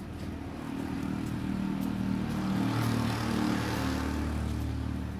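A motor vehicle passing on the road. Its engine hum and road noise grow louder to a peak about three seconds in, then ease off.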